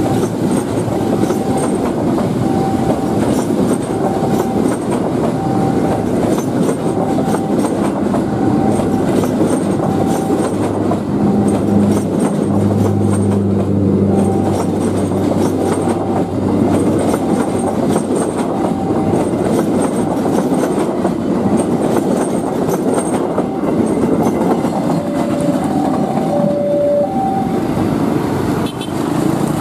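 KA Majapahit passenger train's coaches rolling past close by, with steady wheel-on-rail noise and clatter over the rail joints. A low steady hum joins for about five seconds in the middle. Over it a short beep repeats about once a second, typical of a level-crossing alarm, and near the end it changes to two alternating tones.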